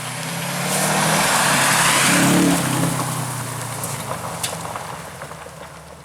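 Rally car passing at speed: engine and road noise build up to a peak about two and a half seconds in, then fade away as it drives off.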